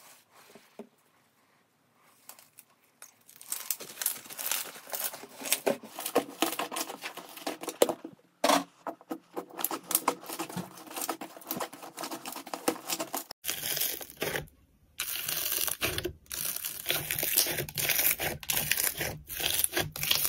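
Hands squeezing and kneading slime: a dense stream of quick sticky crackles and pops. It is faint for the first few seconds, grows louder about three seconds in, and breaks off briefly past the middle before starting again louder.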